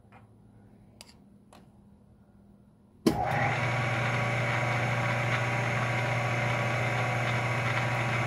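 Two light clicks, then about three seconds in the spindle motor of a ShopTask lathe-mill combo switches on abruptly and runs steadily with a low hum, spinning the chuck for center drilling a steel billet.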